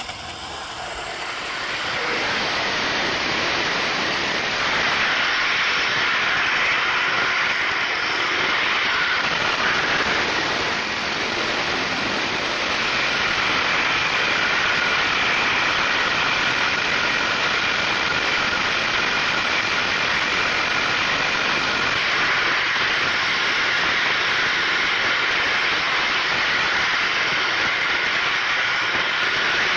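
O-gauge model train running along its track, heard from on board: a steady rolling rumble of wheels on rail with a faint motor whine, building over the first couple of seconds.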